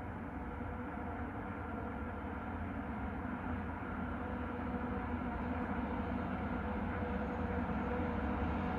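2TE116 twin-section diesel locomotive's V16 diesel engines working hard, hauling a freight train up a grade. A steady engine drone, distant at first and growing louder as the locomotive approaches.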